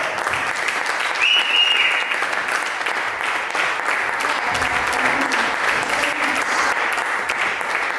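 Audience applauding steadily, many hands clapping, with a short high tone about a second in.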